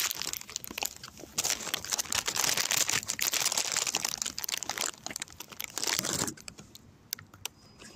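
Close, dense rustling and crinkling right at the phone's microphone, coming in bursts and dying down to scattered light crackles about six seconds in.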